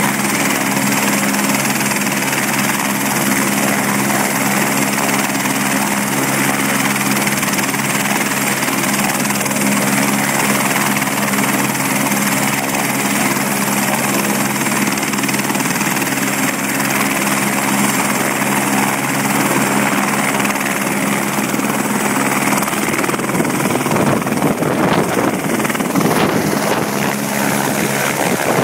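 Airbus AS350 AStar helicopter running on the pad, its turbine and main rotor making a steady hum. About 22 seconds in, the rotor noise thickens into a louder rushing sound as it lifts off.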